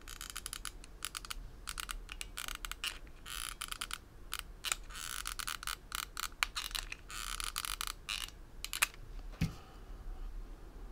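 Stiff organza ribbon petals crinkling and rustling in irregular bursts with small crackles as they are handled and hot-glued. A single light knock comes about nine and a half seconds in.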